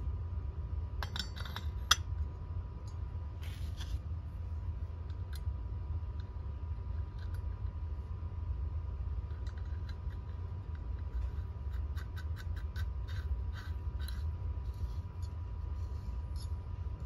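Light metallic clicks, clinks and scrapes of a Ford alternator's fan, pulley and small shaft-end parts being fitted onto the shaft by hand. There is a cluster about a second in and a run of quick ticks in the second half, over a steady low hum.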